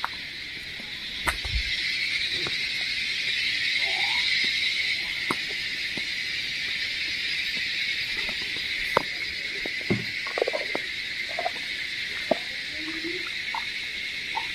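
Steady, high-pitched chorus of insects buzzing, with occasional sharp clicks and brief rustles close by.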